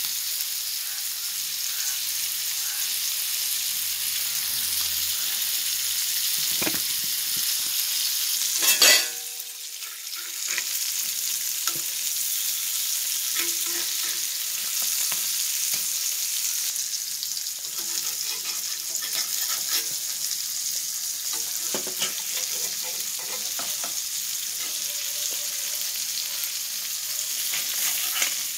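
Sardines sizzling steadily as they shallow-fry in a little oil in a cast-iron pan. A metal spatula scrapes and knocks against the pan now and then, loudest about nine seconds in.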